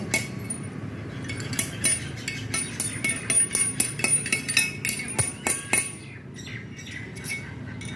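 Light metallic clinks and taps of tools and small parts being handled, coming in a quick irregular run through the middle, over a low steady background hum.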